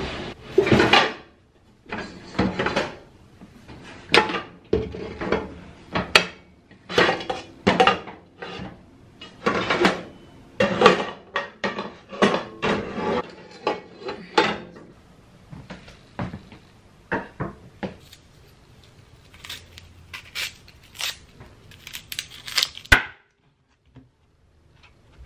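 A refrigerator's bottom freezer drawer being pulled open and items inside it shuffled and knocked about: a busy run of irregular knocks, clatters and rustles that thins out to a few scattered clicks, with one sharp click near the end.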